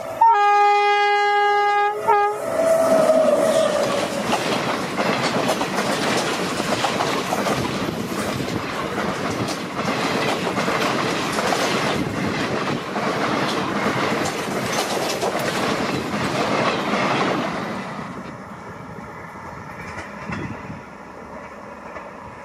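The horn of a WAP-7 electric locomotive sounds one steady note for about two seconds. Then the express train's coaches run past with wheel clatter on the rails, and it fades near the end as the train moves away.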